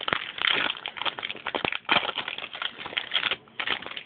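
Magic: The Gathering booster pack being handled: the foil wrapper crinkling and cards being flipped through, a dense run of crackles and small clicks with a short lull near the end.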